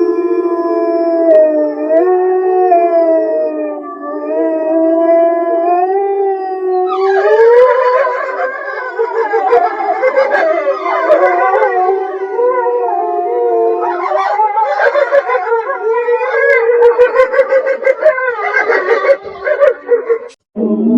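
Wolves howling: a single long, wavering howl, then about seven seconds in several wolves join in an overlapping chorus of howls. The chorus cuts off suddenly near the end.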